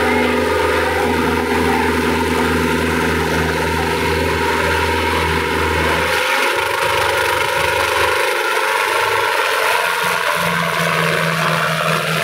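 Sonalika tractor's diesel engine running hard under heavy load as it pulls against a coupled vehicle, a loud steady drone whose note shifts about halfway through, drops away briefly, then settles on a new steady tone near the end.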